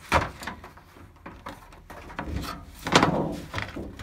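Plastic back cover of an LG LED TV being handled and lifted off the set: a run of clicks, knocks and rubbing of plastic, the loudest knocks just after the start and about three seconds in.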